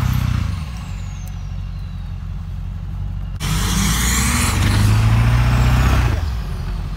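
Diesel V8 pickup truck engine revving hard under load twice. The first rev falls back to a low run about half a second in. The second starts abruptly about three and a half seconds in, climbs in pitch, holds for about two and a half seconds, then drops back.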